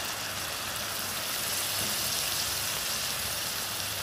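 Shredded chicken with onions and capsicum sizzling steadily as it fries in an iron karahi.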